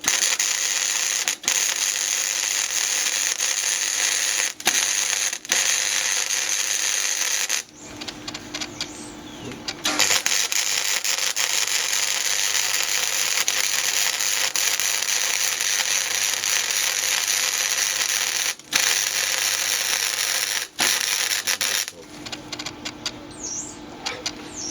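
Electric arc welding: a steady frying crackle and hiss in long runs, stopping for about two seconds after the first eight seconds, then welding again for about twelve seconds before stopping near the end.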